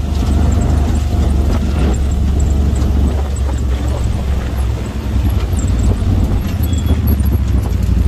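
Side-by-side UTV engine running steadily as the vehicle drives over a rough dirt track, heard from inside the vehicle, with frequent knocks and rattles from the body and suspension over the bumps.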